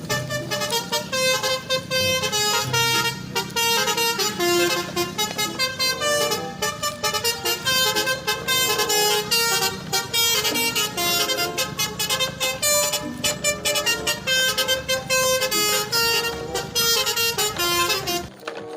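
A fast rhythmic tune of horn-like electronic tones over a steady beat. It stops abruptly near the end.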